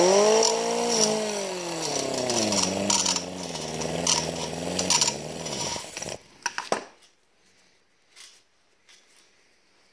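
Electric angle grinder with a cutoff wheel spinning up and grinding on a steel brake line, its motor pitch sagging and wavering under the load with bursts of harsh grinding noise. About six seconds in it is switched off and winds down, followed by a couple of sharp clacks.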